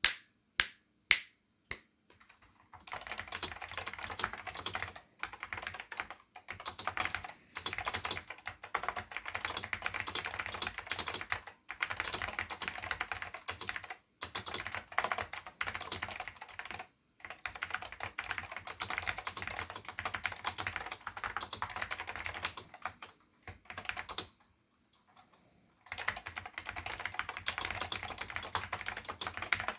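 Dell AT101 keyboard with Alps SKCM Salmon switches and ABS doubleshot keycaps in its bigfoot chassis being typed on. It starts with four single, louder keystrokes, then runs into steady fast typing with brief pauses and a longer pause about 24 seconds in.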